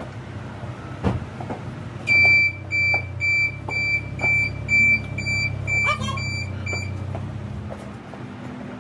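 A thump, then a run of about ten evenly spaced electronic beeps, roughly two a second, over a steady low rumble like a running engine. The rumble stops about a second after the last beep.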